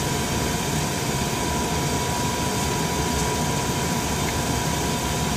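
Steady drone and hiss of machinery running in an aircraft cockpit, with a thin, even whine above it that does not change.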